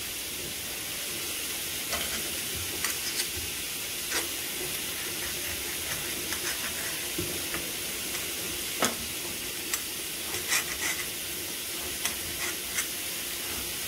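Steady sizzle of food frying in a pan, with scattered sharp taps of a kitchen knife against a plastic cutting board as an onion is cut.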